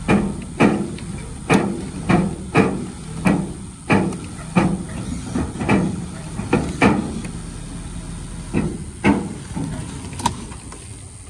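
A wooden cabin on skids being winched up onto a tilt-tray tow truck: a run of loud, irregular knocks and creaks, roughly one every half second to a second, pausing for a moment near the end before a few more, over the steady low rumble of the truck's running engine.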